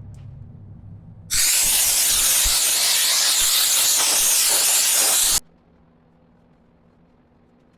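A loud, steady hiss of pressurized spray, starting about a second in, running about four seconds and cutting off suddenly.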